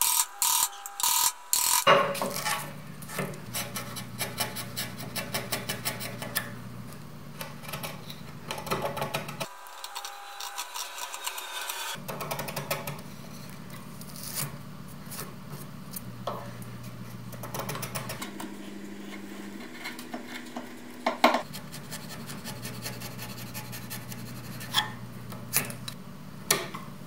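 Steel chisel paring and scraping across the grain of a softwood block, cutting a shallow groove: repeated short scraping strokes and small clicks of the edge in the wood, with a few sharper knocks, loudest in the first two seconds and once about 21 seconds in.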